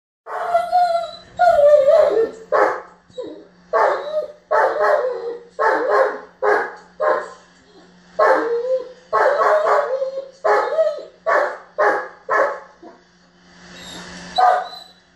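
German Shepherd barking and whining in a tantrum: a couple of drawn-out, wavering whiny yowls, then a long run of sharp barks, some trailing into whines. He is frustrated that his ball has gone under the bed.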